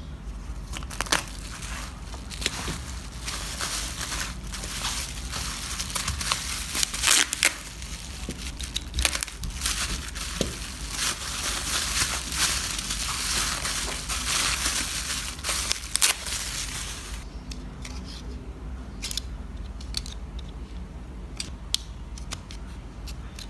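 Steady crinkling and crunching of something being handled, with many scattered sharp clicks; it thins to occasional clicks about three quarters of the way through.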